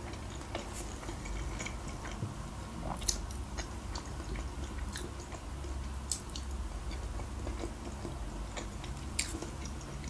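Close-miked chewing of soft boiled pelmeni dumplings in cheese sauce, with scattered wet mouth clicks and smacks.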